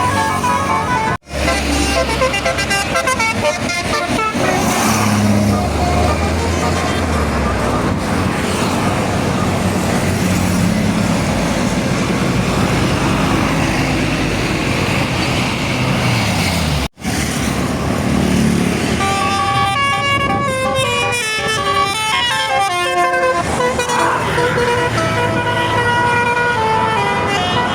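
Basuri 'telolet' multi-tone bus horns playing quick melodic tunes of stepping notes near the start and again through the last third, with bus engine rumble beneath. In the middle stretch the engine and traffic rumble carry on without horn tunes, and the sound breaks off abruptly twice.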